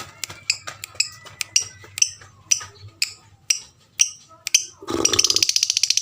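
Lovebird calling: a run of short, sharp, high chirps, several a second. About five seconds in it breaks into a loud, fast, continuous chattering trill.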